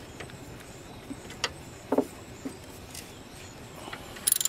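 A few light clicks and knocks of a hand and tools on the engine, then near the end a short run of rapid ticking from a ratchet wrench's pawl working the alternator's 14 mm pivot bolt.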